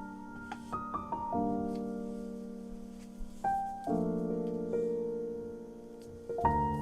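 Background piano music: sustained chords that change every couple of seconds, each fading before the next.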